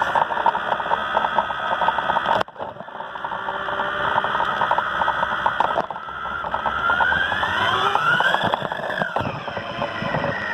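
Small electric motor of a toy RC car whining, its pitch rising and falling with the throttle, over a rapid rattle of the wheels on concrete. The sound breaks off sharply twice, about two and a half and six seconds in.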